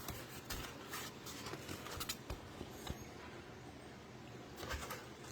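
Packaging handled while a small appliance is unboxed: faint rustling with scattered light clicks and taps.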